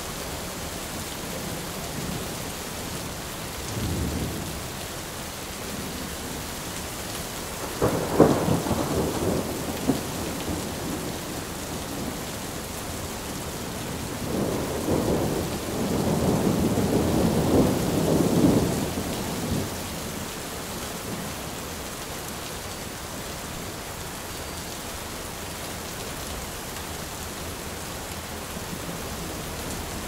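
Steady rainfall with thunder. A short low rumble comes about four seconds in, a sudden loud clap about eight seconds in rumbles on for a couple of seconds, and a longer rumble runs from about fourteen to twenty seconds in.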